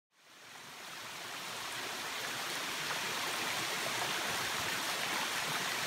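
Steady rushing sound of running water, fading in from silence over the first second or two and then holding even.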